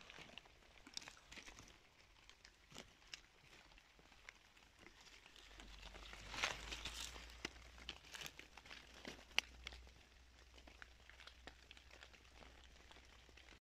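Faint rustling of wet fallen leaves and undergrowth as a person moves low through the forest floor, with scattered small ticks and a louder rustle about six seconds in.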